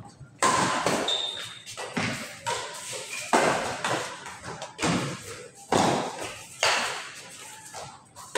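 Badminton rackets striking a shuttlecock back and forth in a doubles rally: a string of sharp hits about a second apart, each with a short echo.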